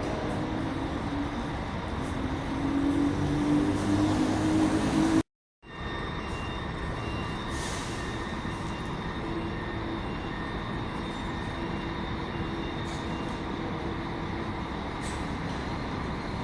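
Diesel coach engine running, getting louder with a low, slightly rising tone for a few seconds. It then drops out abruptly for half a second and comes back as a steady running sound with faint, broken high tones.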